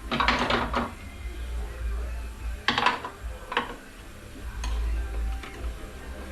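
Metal parts of a Ford AOD automatic transmission clinking and scraping as it is taken apart by hand, in several short clusters of clanks, over background music.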